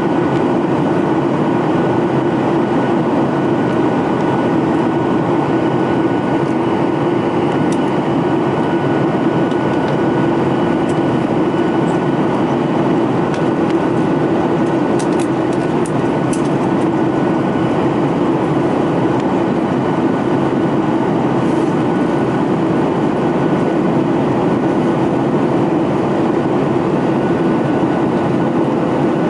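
Boeing 737-800 with CFM56-7B turbofan engines: a steady, unchanging drone of engine and airflow noise, with a few thin steady whines running through it. A few faint light clicks come about halfway through.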